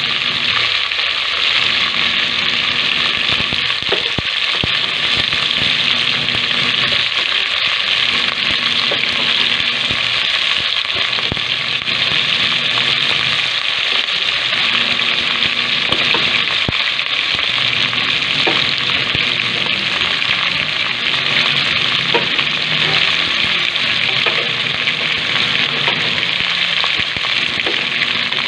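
Adobo meat frying in an aluminium pot on the stove: a steady, unbroken sizzle.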